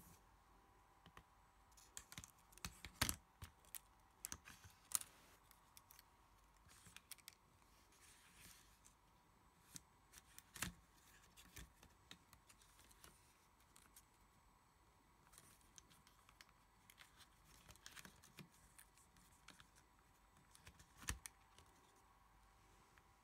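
Scattered faint clicks, taps and light scrapes from hands handling the parts of an opened Samsung tablet, a replacement battery and its connectors being set in place. The sharpest clicks come about three and five seconds in, and near the end.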